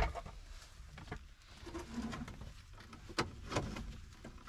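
A few scattered sharp clicks and knocks from hand tools and loosened dashboard parts being handled while a Datsun 521 pickup's dashboard is taken apart.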